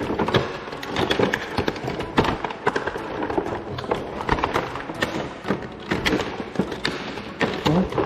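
Action figure packaging being handled: a cardboard box and plastic tray giving irregular taps, knocks and rustles.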